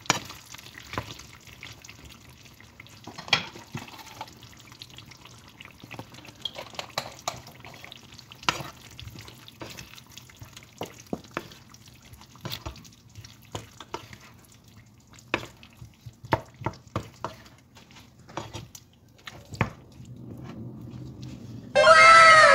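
Wooden spatula stirring a thick curry in a nonstick frying pan: irregular clicks, knocks and scrapes against the pan over a faint steady background. Near the end, a loud burst of repeatedly falling tones cuts in suddenly.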